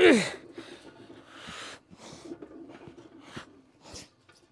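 A man's loud strained grunt, falling in pitch, right at the start, then a string of short forceful breaths and exhales from the effort of lifting a heavy weight.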